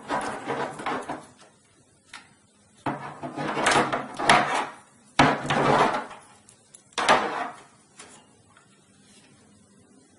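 Power-supply cables and plastic connectors rustling and knocking against the computer case in several bursts as a power connector is worked onto a hard drive, with sharp clicks among the bursts.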